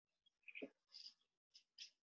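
Near silence: room tone with a few faint, short hisses and ticks.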